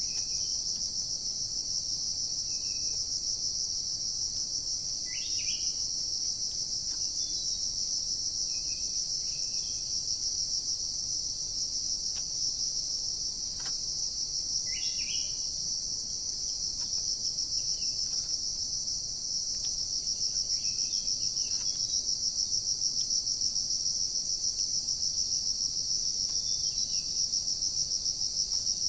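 Steady, high-pitched buzzing chorus of insects, typical of crickets in forest undergrowth, with short bird chirps breaking in every few seconds.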